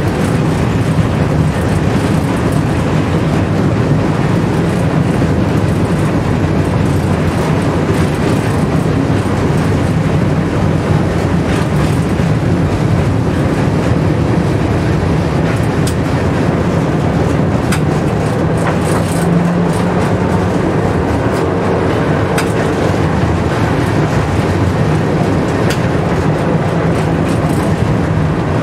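Tram running along street track, heard from inside the driver's cab: a steady rumble of wheels and running gear, with scattered short clicks and knocks.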